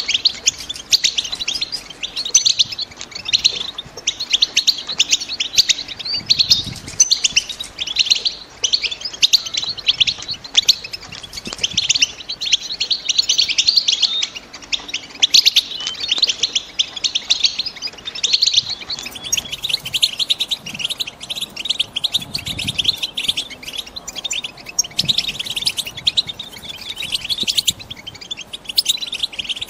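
Female European goldfinches twittering in a continuous rapid chatter of high chirps, the excited call of hens in breeding condition that is used to stir male goldfinches into song.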